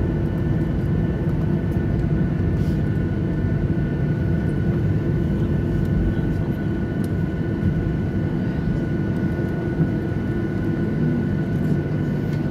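Airliner engine noise heard from inside the cabin while taxiing: a steady low rumble with a thin, even whine above it.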